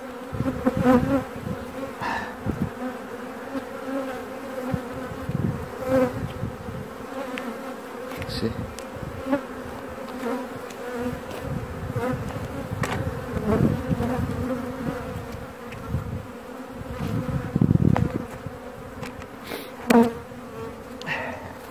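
Honeybee colony buzzing steadily from an open hive, a constant drone, with a few thumps and knocks from handling among it.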